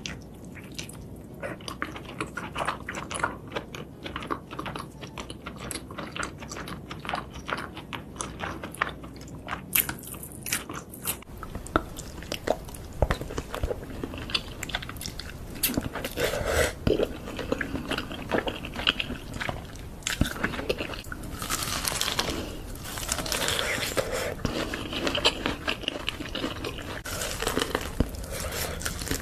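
Close-miked eating of seafood: steady chewing with many short crunches, and louder, wetter chewing in the second half.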